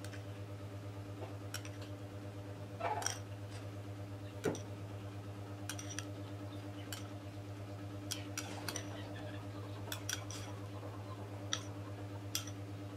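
A spoon clicking and clinking against a small ceramic bowl as sauce is scooped out and spooned onto a plate: scattered light clicks, about a dozen, over a steady low hum.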